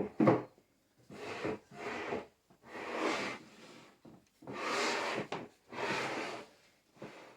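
A sharp wooden knock, then five rubbing strokes on wood, each lasting under a second, with short gaps between them.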